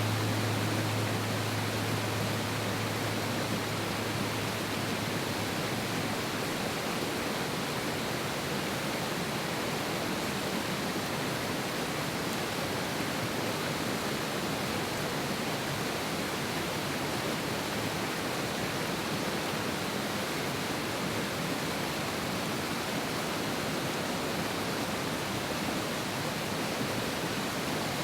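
Mountain river rushing hard over rocks, a steady, even roar of water. A low hum of background music fades out over the first few seconds.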